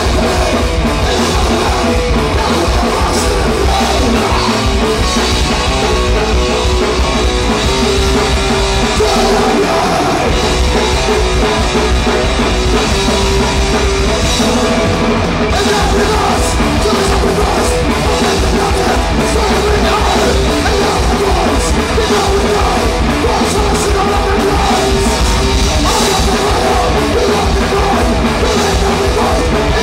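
Punk rock band playing live at full volume, drum kit driving the song, with shouted vocals.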